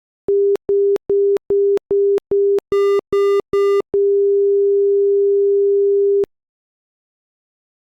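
Electronic alert tone: nine short low beeps, about two and a half a second, the last three with a harsher higher tone laid over them, then one long steady tone of about two seconds that cuts off abruptly.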